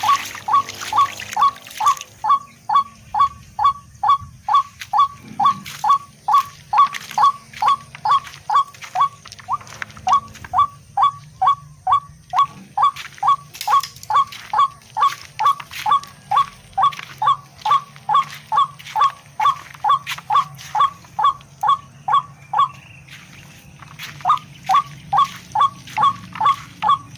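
A rail (tikling) calling, a short falling note repeated about twice a second, with a brief pause near the end.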